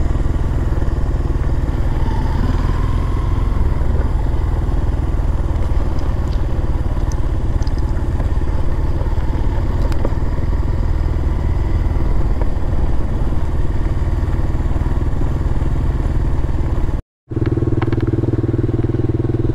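Single-cylinder four-stroke mini motorcycle engine running steadily on the move, with heavy low rumble. Near the end the sound cuts out for a moment and comes back as a steadier engine tone.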